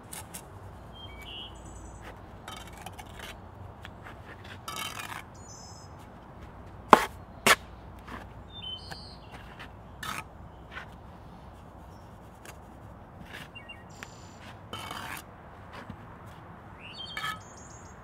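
Steel brick trowel working mortar on a brick wall: a series of short knocks and scrapes, with two sharp clinks about seven seconds in as the loudest sounds. Birds chirp faintly in the background.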